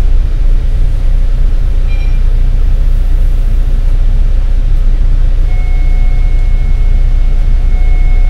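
Bus engine idling with a steady low rumble, heard from on board while the bus stands at a stop. A short pip comes about two seconds in, and a faint steady high tone starts about five and a half seconds in.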